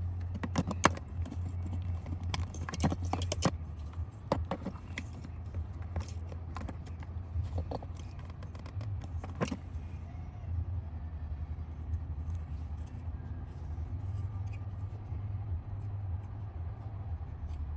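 Metal hand tools clicking and clinking as a socket is handled around the ignition coil mount, a run of sharp clinks during the first half that thins out after about ten seconds, over a steady low rumble.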